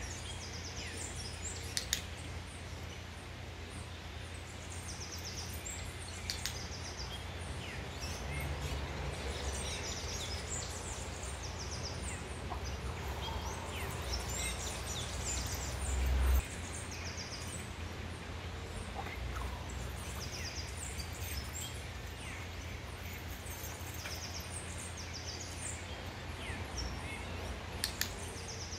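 Birds chirping and trilling over a steady low rumble, with a few sharp clicks. A louder low rumble swells and cuts off suddenly about sixteen seconds in.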